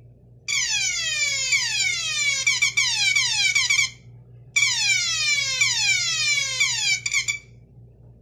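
Electronic alarm sounder sounding in two bursts of about three seconds each, a rapidly repeating falling-pitch tone, as its bare supply wires are touched together to close the circuit. It works. The second burst stutters briefly near its end as the wire contact breaks.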